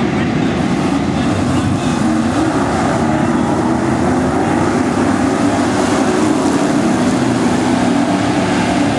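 Several dirt-track stock car engines running together at racing speed as the pack passes through a turn and down the straight: a loud, steady drone of overlapping engine notes.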